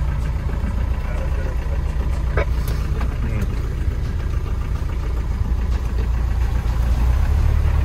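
Land Rover Defender's engine running steadily, heard from inside the cabin as it drives into deep floodwater. It gets a little louder near the end.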